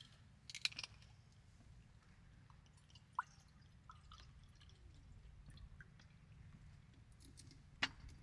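Faint clicks and taps of things being handled on a table, a small cluster about half a second in, a sharp tick about three seconds in and another near the end, over a low steady rumble.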